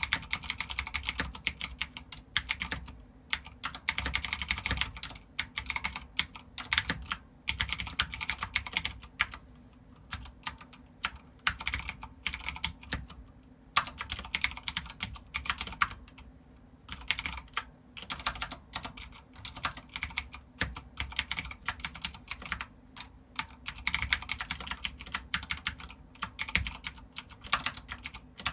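Typing on a GANSS GK87 Pro tenkeyless mechanical keyboard with clicky Cherry MX Green switches: rapid key clicks in runs of a few seconds, broken by short pauses.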